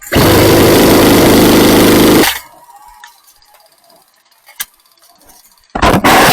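Airsoft gun firing on full auto: a long rapid burst of about two seconds at the start, then a second burst near the end.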